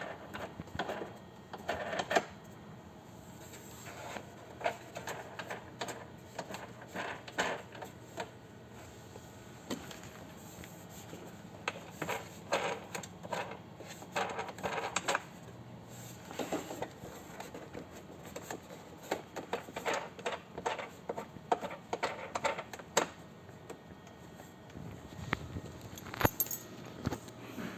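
Xiaomi Mi Walking Pad R1 Pro running with someone on it: a steady low motor hum under irregular clicking and rattling. This is the unwanted noise the walking pad makes in use.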